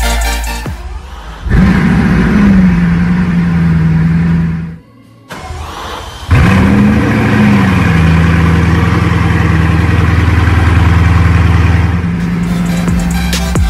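Bugatti Chiron's quad-turbo 8.0-litre W16 engine being started twice. Each time it flares with a quick rise in revs, then settles into a steady idle. The first run cuts off after about three seconds, and the second starts a moment later and idles on.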